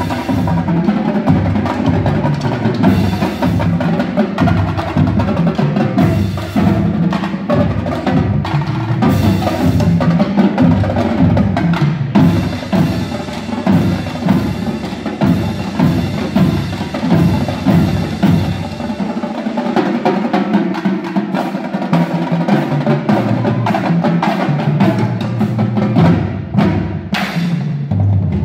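High school drum line of snare drums, tenor drums and bass drums playing a fast, dense cadence together. About two-thirds of the way through the bass drums drop out, leaving snares and tenors, and the deep drums come back in near the end.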